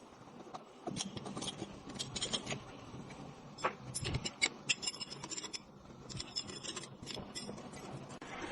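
Irregular scratching and scraping with many light clicks, from hand work on metal parts.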